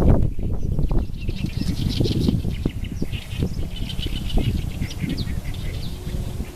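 Wind blowing through reeds with a low, gusting rumble, and small birds chirping over it again and again.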